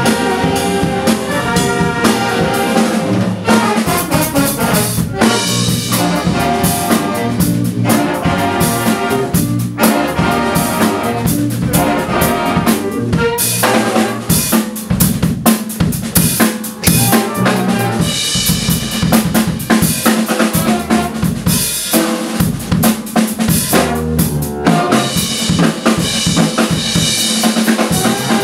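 Student big band playing a jazz-funk number live: saxophones and brass over a busy drum kit with snare and rim shots. The drums come to the fore about halfway through as the held horn notes thin out.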